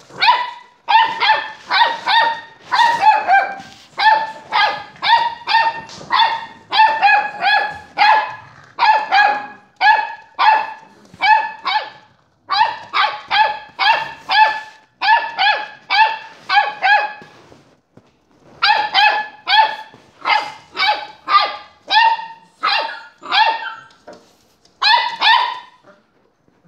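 A dog barking in short, high-pitched yaps, about two to three a second, in long runs broken by brief pauses.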